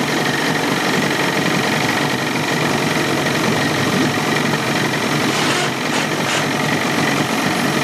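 Old Johnson two-stroke outboard motor running steadily.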